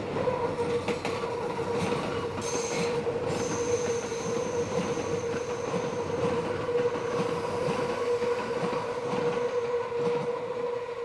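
Steel wheels of a Meitetsu 6000 series + 6500 series electric train squealing as they round a sharp junction curve: one steady, mid-pitched squeal, joined by a higher, shrill tone from about two and a half to eight seconds in. Faint clicks of the wheels on the rail joints run underneath.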